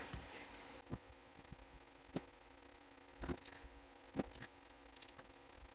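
Faint, scattered clicks and taps of small metal lock parts, about five over a few seconds, as an ISEO euro cylinder is gutted and its pins taken out.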